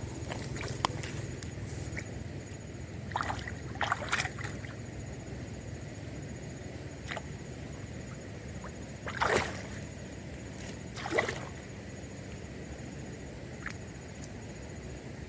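Small river running with a steady low rush, and a handful of louder gurgles and splashes, the biggest about nine seconds in and again about two seconds later.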